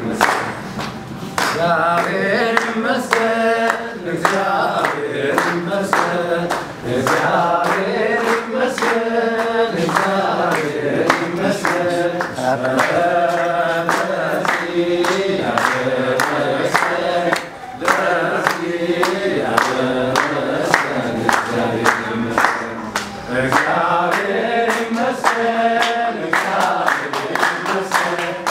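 A crowd singing together in chorus, with steady rhythmic hand clapping.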